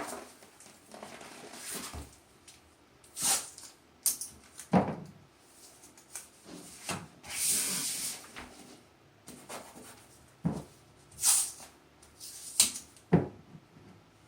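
Painter's tape being pulled off the roll and torn into pieces: a string of short, sharp rips and crackles, with one longer ripping pull about seven seconds in.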